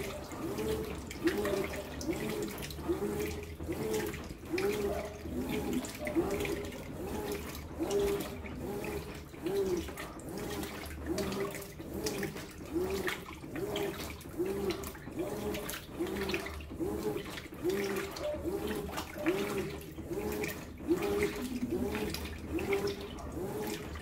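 Brastemp BWK14 14 kg top-load washing machine agitating a load of jeans in water. The water sloshes and churns, and the motor whines up and down with each back-and-forth stroke, about twice a second, in an even rhythm.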